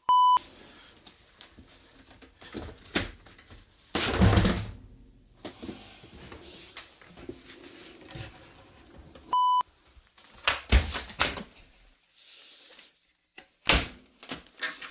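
Two short, loud 1 kHz bleep tones, each about a third of a second, one at the start and one about nine seconds in. In between come scattered knocks and a longer clatter as a dishwasher's front door panel is handled and fitted.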